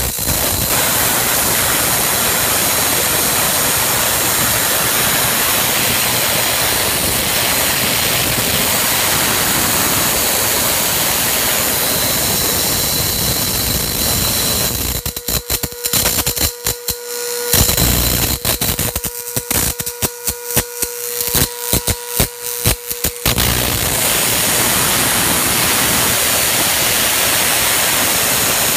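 Tesla coil spark gap arcing continuously inside a PVC pipe with air blown across it, a loud steady hiss. For several seconds past the middle it sputters, cutting in and out rapidly, then runs steady again.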